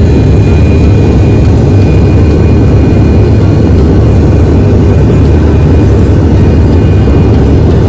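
Jet airliner's engines and running gear heard from inside the cabin: a steady, loud low rumble as the plane rolls along the runway.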